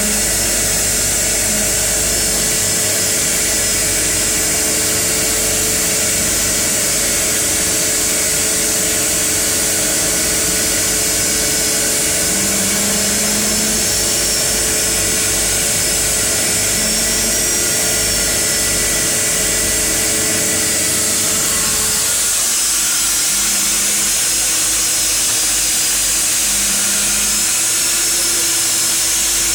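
Seaplane's propeller engine heard from inside the cabin while taxiing on the water: a loud, steady whine and drone. About 22 seconds in, the low drone drops away and a tone slowly rises in pitch.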